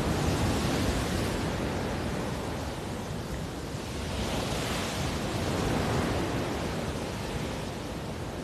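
Wind buffeting the microphone over the rushing of a choppy sea, a steady roar that swells a little about a second in and again around five to six seconds.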